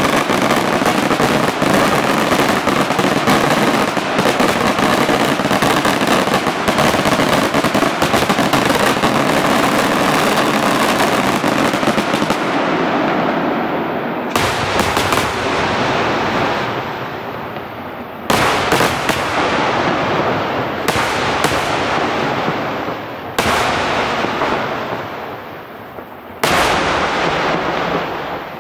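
Aerial fireworks at the closing barrage of a display: a continuous rapid volley of bangs and crackling for about twelve seconds, then single heavy booms a few seconds apart, each rolling away in echo.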